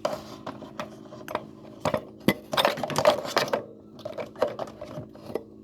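Clicks, clinks and clatter of kitchen utensils and a mixing bowl being handled, busiest about halfway through, over a steady low hum.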